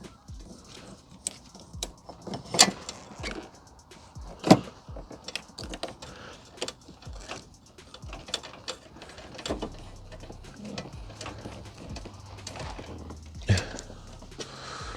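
Scattered metallic clicks and knocks of hand tools on a car battery terminal as the battery is reconnected. Two sharper knocks stand out, about two and a half and four and a half seconds in.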